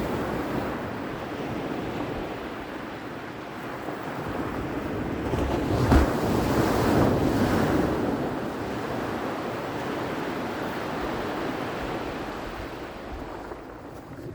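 Ocean waves washing onto the shore in a steady rush, one wave swelling and breaking about six seconds in with a low thud before the surf eases back.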